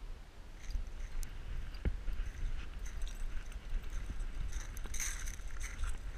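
Close handling noise on a dog-mounted camera: rustling and small scattered clicks as a dog lead is handled and clipped on, over a steady low rumble, with a denser burst of rustling about five seconds in.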